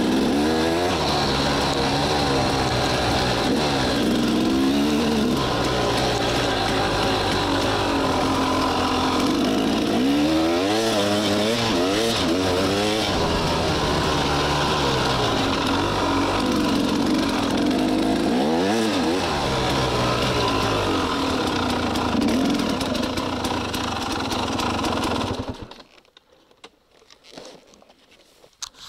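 KTM 300 XC-W's single-cylinder two-stroke engine under way, its revs rising and falling again and again as it accelerates and backs off. The sound stops abruptly about 25 seconds in, leaving near silence with a few faint clicks.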